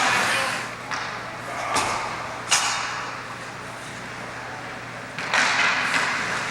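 Ice hockey play in a rink: skate blades scraping the ice, with sharp clacks of sticks and puck, three in the first few seconds and another about five seconds in, followed by louder scraping, over a steady low hum.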